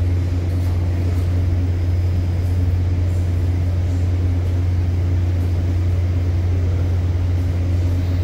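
Steady low hum inside a Moscow Metro car standing at a platform with its doors open: the train's onboard equipment and ventilation running while it waits.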